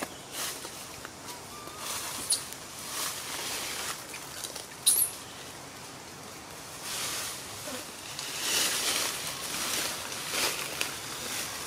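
Rustling and scratching in the tree branches, in uneven swells, with small clicks and a short high chirp about five seconds in.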